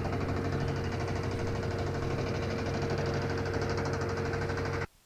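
Steady mechanical drone with a low hum and a steady whine over it, cutting off suddenly near the end as the camera's audio drops out through a faulty connector.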